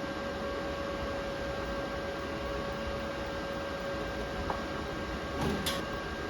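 Steady electrical hum and whine over a hiss from a cold TIG welding machine, with a faint click about four and a half seconds in and two short crackles near the end.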